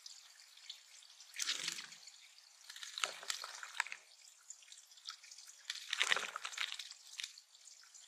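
Tufted titmouse splashing as it bathes in a shallow pond, three short bouts of wing-fluttering splashes, the last the loudest, over a steady trickle and drip of water.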